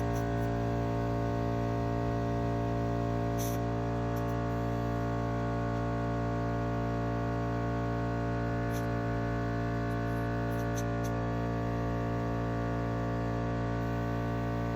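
Air compressor running steadily to inflate a tire, a constant motor hum with a few faint clicks.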